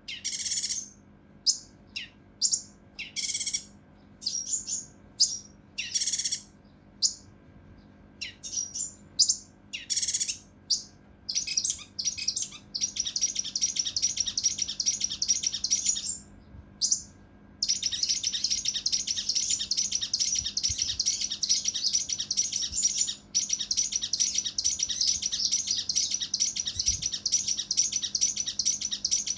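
Kinoi (cucak rante mas) singing: separate short, sharp calls at first, then from about halfway a long, fast, rough rattling trill that runs almost without a break to the end.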